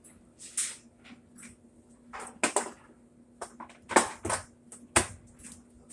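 Irregular clicks and knocks of hands working plastic and metal parts in the corner of a Whirlpool Bravo top-load washer's cabinet during suspension rod replacement, with a steady low hum underneath.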